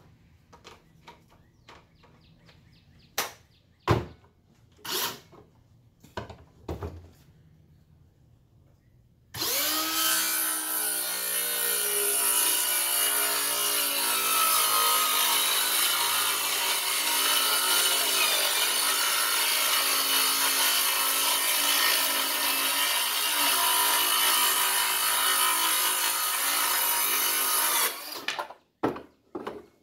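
A few knocks of handling, then a Bauer 20-volt cordless circular saw spins up about a third of the way in and cuts through wood for about 18 seconds, the motor's pitch wavering under load. It stops near the end, followed by a few knocks.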